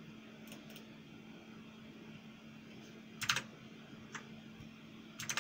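Keystrokes on a backlit computer keyboard: a few scattered key presses, with a quick run of several about three seconds in and another at the end.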